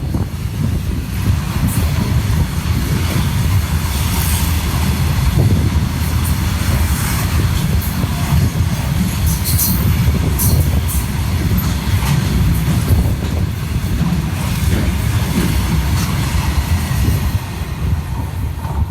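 A train's cars rolling past: a steady, heavy low rumble of wheels on the rails, with a few brief high-pitched wheel squeals around the middle.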